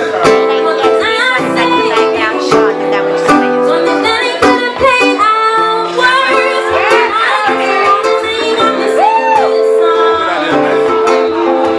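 A woman singing with classical guitar accompaniment: the guitar plays picked notes under her held and gliding sung notes.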